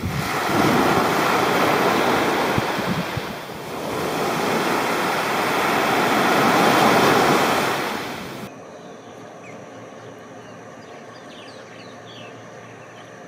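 Surf washing up onto a sandy beach in two long surges. About eight seconds in it cuts off suddenly to a much quieter steady background with a few faint high chirps.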